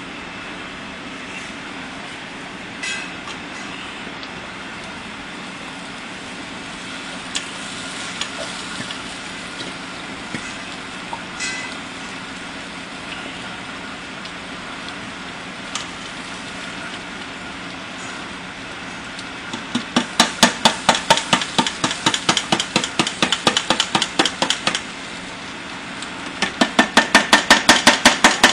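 Barbecue sauce bubbling and sizzling in a saucepan on a gas burner as ketchup is poured in, with a few scattered clicks. In the last third come two runs of rapid, evenly spaced knocking, about five a second.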